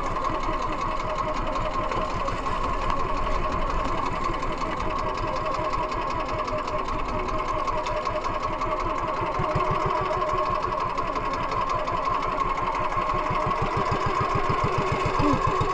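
Small engine of an outrigger fishing boat (bangka) running steadily under way, with a rapid, even chugging that gets a little louder near the end.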